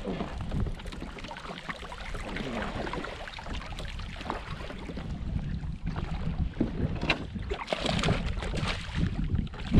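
Water splashing and sloshing against a fishing kayak, with irregular knocks and clatter of the boat and gear, busier in the second half and ending in one sharp knock. Wind on the microphone.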